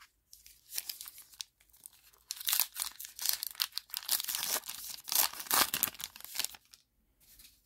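A baseball card pack's wrapper being torn open and crinkled by hand, in a run of crackling tears, loudest through the middle.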